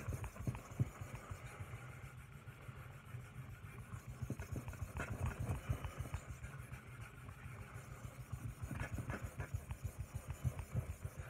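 Knife blade of an Ontario Rat 2 in D2 steel stroked back and forth on a sharpening stone, a long run of quick, soft, even rasping strokes. The second side of the edge is being sharpened to raise a burr.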